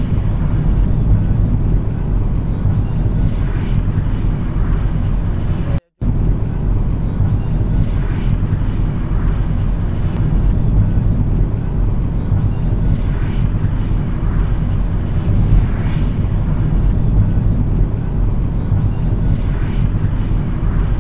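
Steady low rumble of a moving car's road and engine noise heard from inside the cabin, cut off for an instant about six seconds in.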